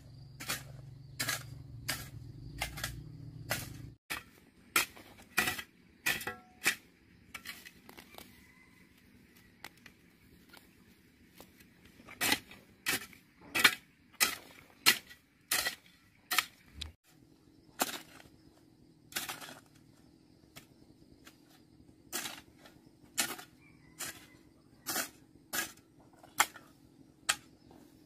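Repeated sharp knocks or taps, about one to two a second in uneven runs, over a faint steady hum. A low drone under them cuts off suddenly about four seconds in.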